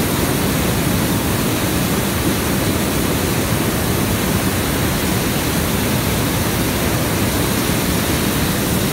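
Hot-air balloon's propane burner firing in one long, steady, loud burn.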